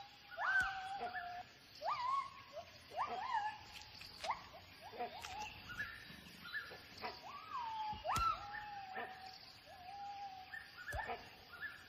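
Gibbons calling: a run of whooping notes, each swooping sharply up and then holding or falling, about one a second, with a few sharp clicks among them.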